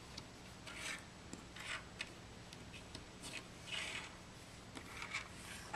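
Hands fitting spring-energized plunger seals onto small metal seal carriers: faint rubbing and light clicks of the parts, several separate short moments, over a low steady hum.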